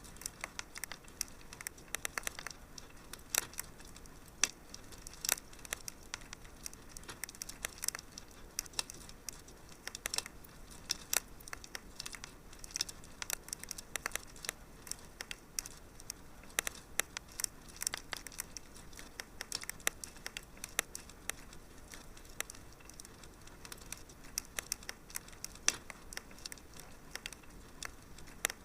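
Wood fire in a fireplace crackling: irregular sharp pops and snaps, several a second, over a soft steady hiss.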